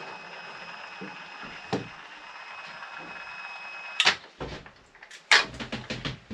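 Cordless powered caulking gun's motor running with a steady whine as it pushes out glue, cutting off about four seconds in. Then a string of sharp knocks and clicks of tools handled against the timber frames.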